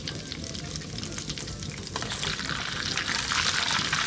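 Melted butter sizzling in a hot wok, crackling steadily, with a metal ladle moving through it. The sizzle grows louder and brighter about halfway through.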